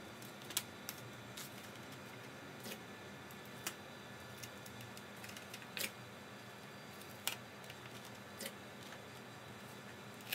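Stiff chart paper handled and bent by hand: about nine short, sharp crinkles and taps at irregular moments over a faint steady hiss of room noise.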